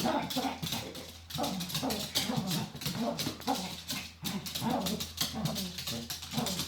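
A dog whining in a string of short pitched cries, several a second.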